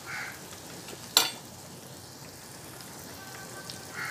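Small onions, garlic and curry leaves frying in oil in a clay pot, with a steady sizzle. One sharp knock about a second in.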